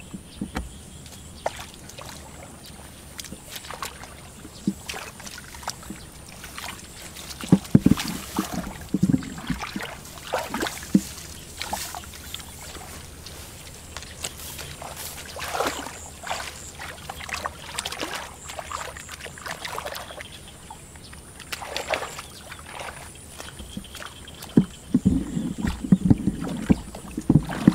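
Hands sloshing and splashing in a shallow muddy ditch while groping for fish, with scattered irregular splashes and squelches. The splashing is heavier about 8 seconds in and again near the end.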